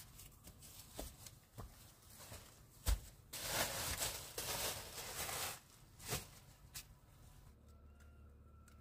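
Scattered light knocks and a dull thump about three seconds in, then about two seconds of rustling, followed by a few more knocks.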